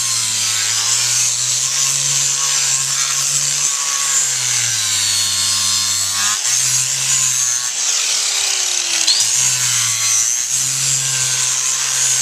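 Electric power grinder running against a horse's hoof wall, grinding back the toe of a front hoof. It gives a steady gritty hiss of abrasion, and its motor pitch rises and falls repeatedly as it works.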